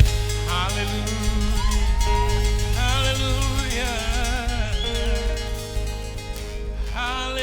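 A worship band's closing outro: the drums stop and sustained bass and keyboard chords hold under a few wordless, wavering vocal lines, tapering off toward the end.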